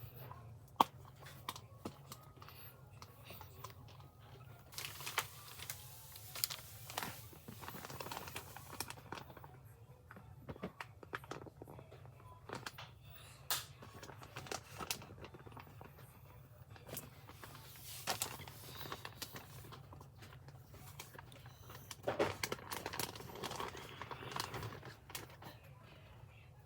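Packaging being unwrapped: crinkling and tearing of wrapping, with many sharp clicks and taps as items are handled, in bouts with short lulls between them.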